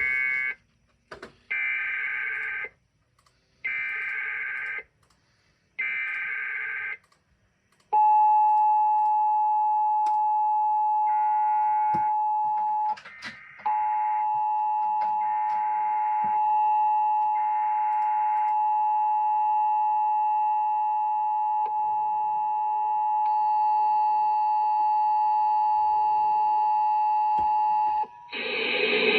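Emergency Alert System signalling: three buzzy one-second bursts of SAME header data with short gaps between them, then the steady two-tone EAS attention signal held for about twenty seconds, dropping out briefly once, with fainter data bursts under it. Near the end another loud data burst begins.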